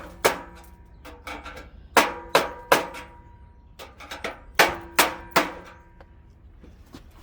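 Hammer blows on the metal parts of a front-load washer, each strike ringing briefly. About a dozen hits come in quick groups of two or three, knocking loose a part that is stuck in place.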